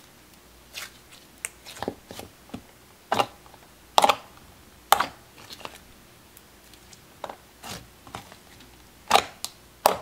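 A thick clear slime being squished, folded and stretched by hand, giving irregular sticky pops and clicks about once a second, the loudest a little before the middle and near the end.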